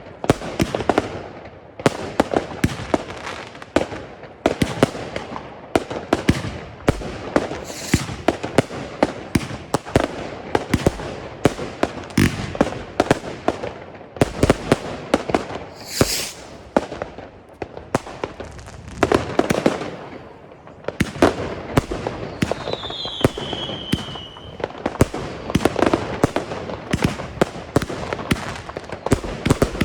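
Consumer firework batteries (cakes) firing a rapid, continuous series of launch shots and aerial bursts, with a falling whistle about 23 seconds in.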